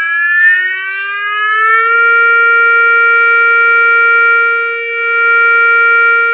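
Emergency alert siren tone, electronically generated, winding up in pitch over about two seconds and then holding a steady pitch, its loudness dipping and swelling once.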